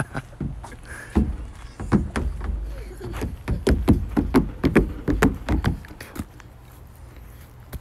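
Footsteps thudding and crunching on playground wood chips, a few a second, with a low rumble of wind or phone handling, loud until about six seconds in and then quieter.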